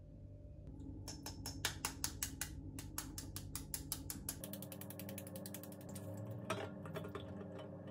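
Shell of a boiled egg being cracked and peeled: a run of quick, even clicks, then faster, denser crackling from about four and a half seconds in, with one louder crack.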